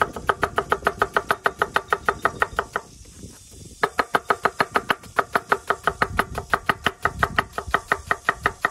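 Chef's knife rapidly slicing shallots on a wooden chopping board: quick, even knocks of the blade on the board, about seven a second, with a short pause about three seconds in.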